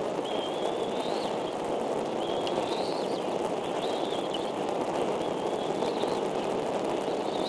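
Bald eagle chicks giving thin, high begging peeps, each drawn out and rising slightly before breaking off, repeated every second or so over a steady rushing background noise.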